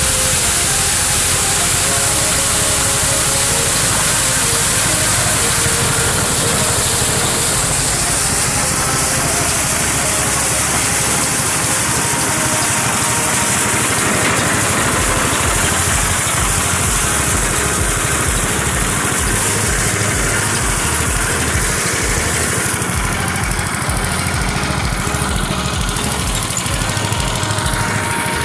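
Small petrol engine driving a homemade rice thresher, running steadily under a loud high hiss, with a regular low pulsing in the engine note from about halfway through.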